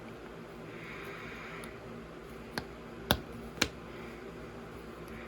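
Hard plastic LEGO pieces being handled and pressed together: a soft rustle, then three sharp clicks about half a second apart, the last two the loudest.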